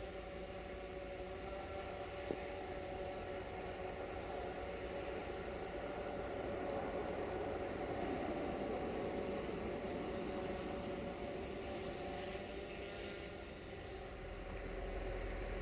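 A steady engine drone with a faint high whine that comes and goes above it.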